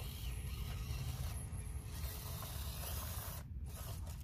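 Hobby Plus CR-18 1/18-scale RC crawler's small electric motor and gears whirring as it crawls over rock, over a steady low rumble. The higher hiss breaks off briefly about three-quarters of the way through.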